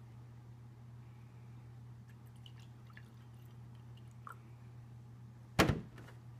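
Milk poured from a plastic jug into a wine glass, faint small splashes and drips, then a sharp knock about five and a half seconds in as the jug is set down on the wooden table. A steady low hum runs underneath.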